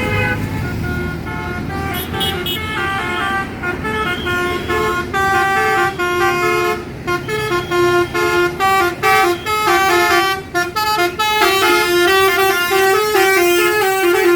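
Indonesian bus 'telolet basuri' musical horn playing a melody of quick stepping notes. Through the middle the notes come in short separate blasts, and near the end they run together in a fast, unbroken phrase.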